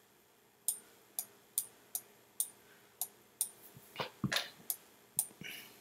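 A series of sharp computer clicks from a keyboard and mouse being worked, about two a second, with a duller knock about four seconds in.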